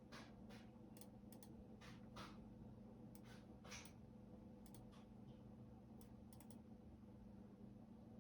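Faint computer keyboard typing: sparse, irregular keystrokes in small clusters separated by short pauses.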